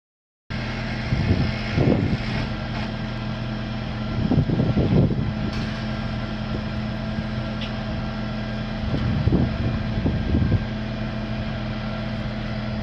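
Engine of a JLG 450AJ boom lift running steadily at idle. The sound cuts in about half a second in, with louder low rumbles about two, five and ten seconds in.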